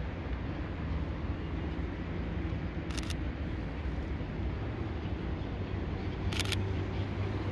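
Steady outdoor rumble with a low engine-like hum, broken twice by a short, sharp hiss-like burst about three and a half seconds apart.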